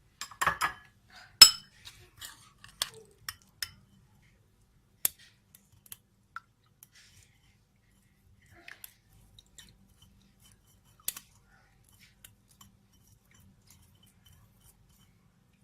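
Scattered sharp clicks and light clinks of kitchen utensils and dishes being handled. The loudest click comes about a second and a half in, and the rest are spaced out with long gaps between them.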